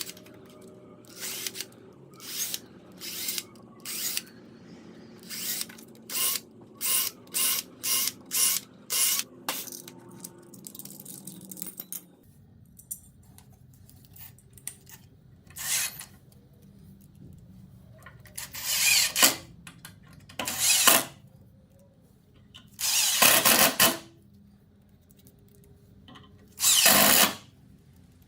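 Power drill run in short trigger bursts, about a dozen in quick succession, then several longer runs of about a second each, pre-drilling holes for caster mounting screws.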